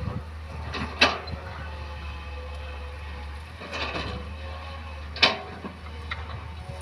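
Isuzu Elf dump truck's diesel engine running in a steady low drone as the loaded truck drives over rough ground, with sharp clanks about a second in, around four seconds and a little after five seconds.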